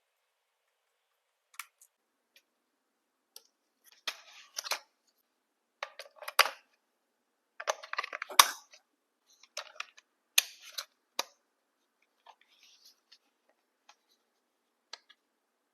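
Hands handling a plastic RC truck and its packaging: scattered clicks and short rustling clatters in irregular clusters, with the sharpest clicks near the middle.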